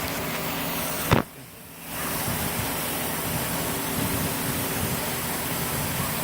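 Steady background hiss with a faint low hum. It is broken about a second in by a single sharp click and a brief drop in level, then resumes unchanged.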